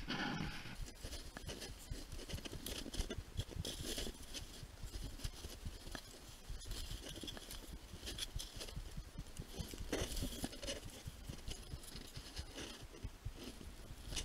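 Skis scraping and crunching over snow in short, irregular bursts, with small knocks and rustles mixed in.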